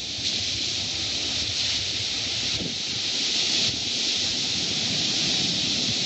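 Small waves washing onto a sandy beach: a steady hiss of surf, with wind rumbling on the phone's microphone.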